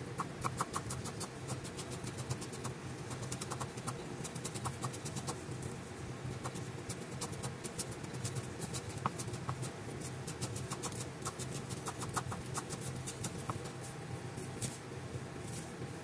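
Chinese cleaver chopping spring onions on a thick end-grain wooden chopping block: quick runs of sharp knocks with short pauses between them, over a steady low hum.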